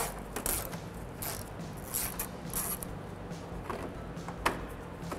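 Hand ratchet with a 10 mm socket and extension clicking in short, irregular strokes, backing bolts out of a plastic underbody splash shield.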